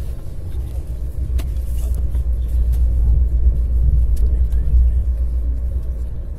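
Passenger train running at speed, heard from inside the carriage as a steady low rumble, with a few faint clicks.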